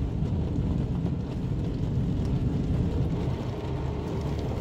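Automatic car wash running outside the car, heard from inside the cabin as a steady rumbling wash of noise.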